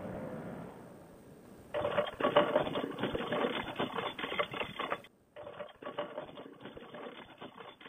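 A paramotor trike on the ground: a fast mechanical rattle of many sharp ticks over a steady hum, starting abruptly about two seconds in, breaking off for a moment near five seconds, then going on. Before that, a steadier running hum fades away in the first second.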